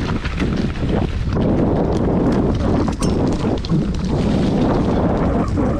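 Mountain bike ridden over a rough dirt trail: tyre noise with the bike rattling and knocking over bumps many times a second, under wind noise on the microphone.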